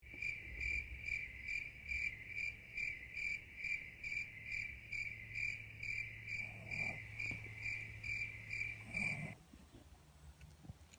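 A cricket chirping steadily, about three chirps a second, over a low steady hum. Both cut off abruptly about nine seconds in, leaving faint snoring from a sleeping dog.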